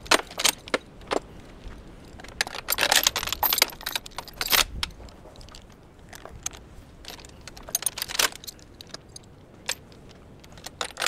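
Steel chains jangling and clinking against the metal cage of an IBC tote as they are pulled tight for lifting, in several short spells with pauses between.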